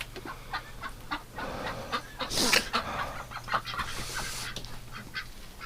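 Light clicks and rustles of egg cartons being handled and stacked as the eggs are counted, with ducks and geese calling in the barn.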